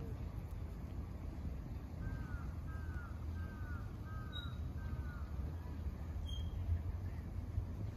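A bird calling five times in a row about two seconds in, each call a short falling note, with two faint high chirps a little later.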